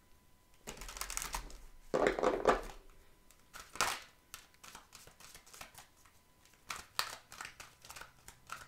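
A deck of oracle cards being shuffled by hand: a run of quick light card clicks and flicks, with a few louder swishes in the first four seconds.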